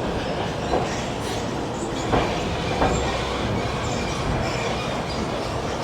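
Disneyland guest tram rolling along, heard from aboard: a steady rumble and rattle of the open tram cars, with two sharp clunks a little over two seconds in.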